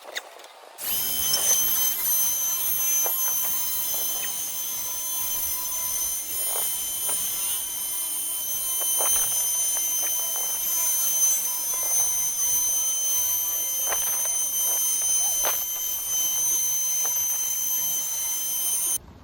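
Electric router running steadily, a high-pitched motor whine that starts abruptly about a second in and cuts off just before the end.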